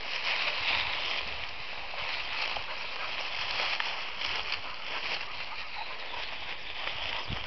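Rustling and swishing of long grass and rushes being pushed through, with a few brief crackles of dry stems.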